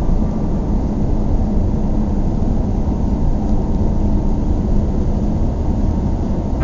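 Steady low rumble of a car driving, road and engine noise heard from inside the moving car.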